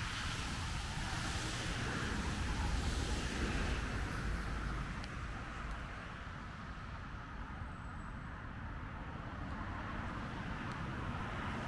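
Steady outdoor background noise: a low rumble of distant road traffic, with a hiss that eases off about halfway through.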